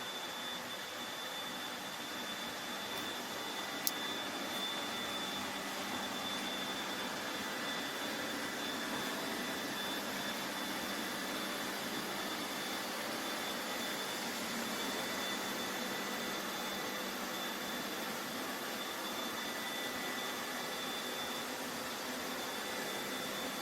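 Lefant M310 robot vacuum running steadily: a constant rush of its suction fan with a thin high whine, and a single sharp click about four seconds in.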